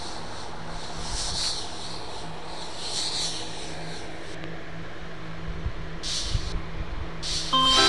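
Spray-and-wipe sound effect: long bursts of hissing that swell about a second and a half in and again at three seconds, then shorter hisses about six seconds in and near the end, over a steady low hum. A short pitched blip sounds right at the end.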